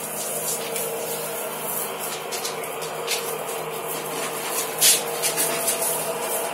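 Backpack sprayer misting disinfectant: a steady hum under the hiss of the spray, with a short louder hiss about five seconds in.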